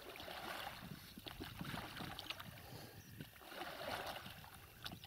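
Faint splashing of wooden paddles dipping and pulling through the water as an inflatable rubber boat is paddled along, in about three slow strokes, with small knocks among them.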